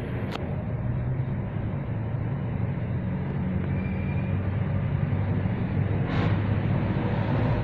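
Steady low drone of a running engine, with a sharp click just after the start and a short scraping noise about six seconds in.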